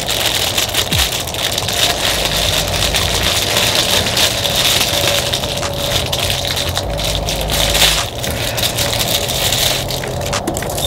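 Close handling noise: dense crackling and rattling of plastic parts as a trolling motor's kill switch is fitted by hand.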